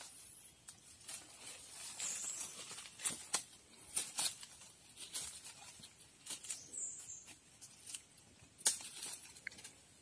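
Leaves rustling and a scatter of sharp snaps and knocks of wood as a thin sapling is pulled, broken and trimmed into a pole with a machete.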